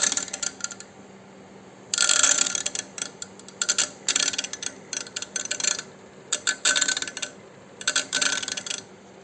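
Irregular bursts of chattering, grinding mechanical clicking, each a second or two long, over a steady low hum. The noise comes from a machine brought in for repair that is nicknamed a 'pancar motoru' (an old single-cylinder engine) for how it sounds, most likely a noisy computer.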